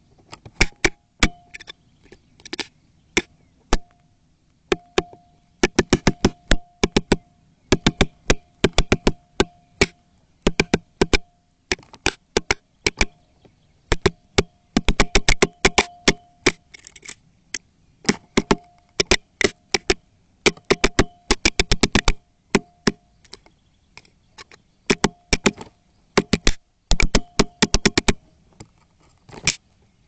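Woodpecker pecking its bill directly against a camera housing, close up. Sharp knocks come in quick bursts of several strikes with short pauses between bursts.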